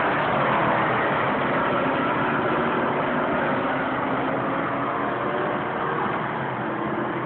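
Pack of street stock race cars running at speed around the track, their engines blending into a steady loud drone with faint engine pitches gliding up and down.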